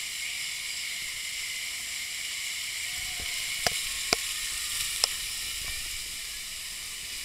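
Steady hiss of rushing water, with a few sharp clicks about halfway through.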